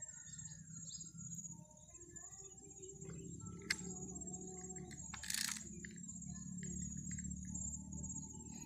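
Insects trilling in a steady high drone, with scattered short bird chirps. A sharp click sounds a little before halfway and a brief scrape about five seconds in.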